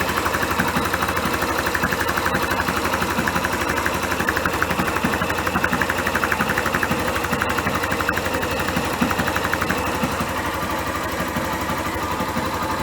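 Yamaha XTZ 150 Crosser's single-cylinder four-stroke engine idling with a fast, even beat, sounding fine to the mechanic.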